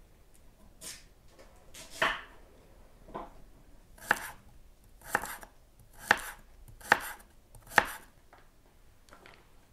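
Chef's knife slicing a peeled carrot into thin strips on a wooden cutting board: a short crunch through the carrot ending in a sharp knock of the blade on the board, about once a second.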